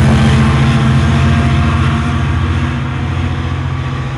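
Metrolink diesel locomotive engine running under load, a steady low drone with rail noise, fading gradually as the train pulls away.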